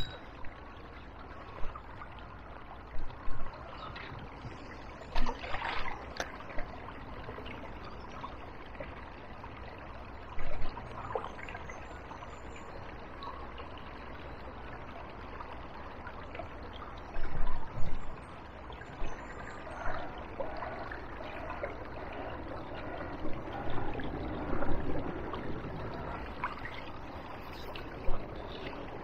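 Small river flowing steadily with a trickling sound, broken by about a dozen brief, louder rustles and knocks scattered through it.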